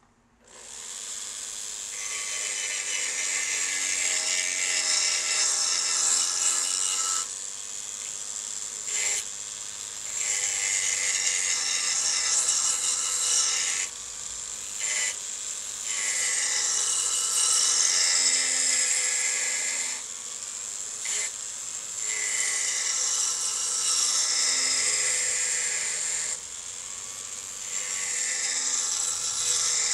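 Carbide-cutter power checkering tool cutting lines into a wooden grip panel, whirring and rasping in repeated passes of a few seconds each with short breaks between them.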